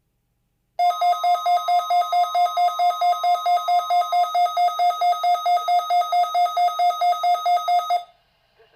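Midland WR-120 weather radio sounding its alert alarm: a loud electronic beep pulsing about four times a second, starting about a second in and cutting off suddenly after about seven seconds. It signals that the radio has picked up an alert broadcast, here a Required Monthly Test.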